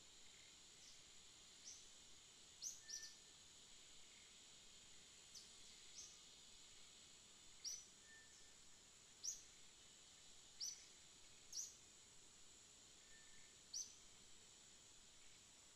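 Faint forest ambience: a steady high-pitched insect drone, with about a dozen short, high, falling chirps spaced a second or two apart.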